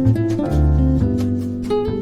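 Background music led by plucked guitar, with a bass line and notes changing every half second or so.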